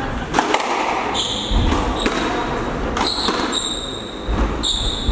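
Squash rally: the ball cracking off rackets and the court walls in a string of sharp hits every second or so, with short high squeaks of players' shoes on the wooden court floor.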